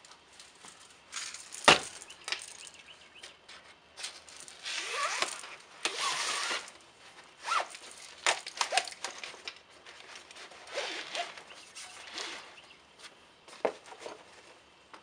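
Handling noise as a pump BB gun is slid into a fabric rifle scabbard: fabric rustling and scraping with scattered clicks and knocks, the loudest a single sharp knock about two seconds in.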